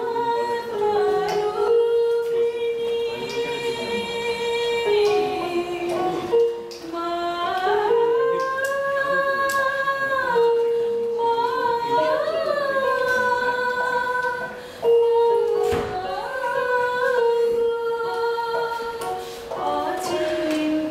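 A woman singing a slow song with long held notes that step and glide in pitch, accompanied on an electronic keyboard played through a small amplifier.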